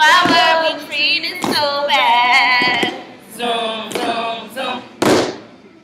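A step team of women chanting in unison during a step routine, in short sung phrases, broken by sharp stomps and hits of the steppers' boots; the hardest hit lands about five seconds in.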